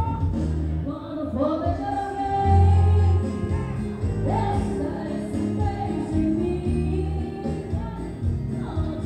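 A woman singing into a microphone over amplified instrumental accompaniment with a steady bass line.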